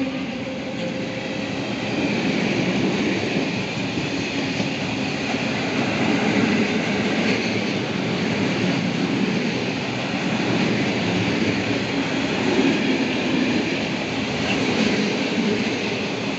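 Freight train's open wagons rolling past close by: a steady noise of steel wheels running on rail, with small swells and no breaks.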